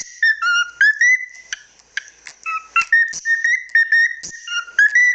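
Cockatiel whistling a quick run of short, clear notes that step up and down in pitch, with a few sharp clicks in between.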